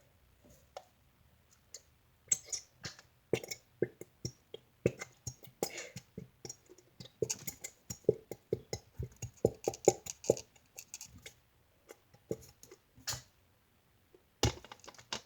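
A run of irregular clicks, taps and knocks of slime-making supplies being handled, dense through the middle and ending with one sharper knock near the end.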